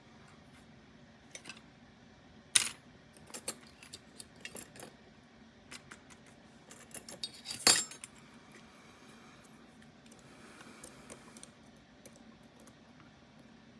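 Small metal parts clinking and tapping as a lock and its picking tools are handled, with two sharper knocks, one about two and a half seconds in and one near the middle.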